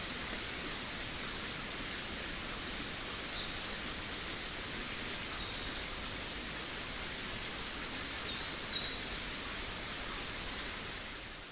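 Forest ambience: a steady background hiss with a small songbird singing short, high, falling twittering phrases four times. The sound fades out near the end.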